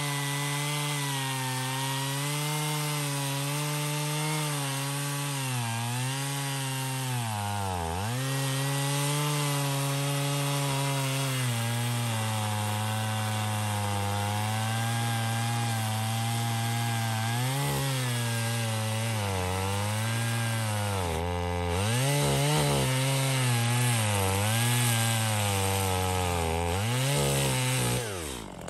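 Stihl MS 250, a 45cc two-stroke chainsaw, running at full throttle through wood. Its engine note dips sharply several times as the chain loads up in the cut and recovers in between. The sound falls away right at the end.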